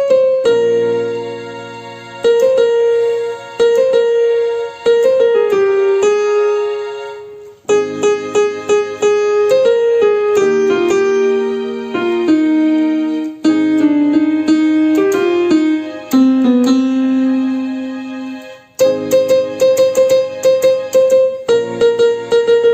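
Electronic keyboard playing a song's instrumental interlude: a single-note melody over held chords. The phrases die away twice before the next one starts.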